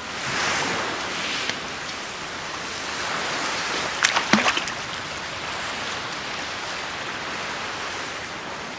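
Sea surf washing onto a pebbly beach, a steady hiss that swells and ebbs with the waves. A few short sharp clicks sound about four seconds in.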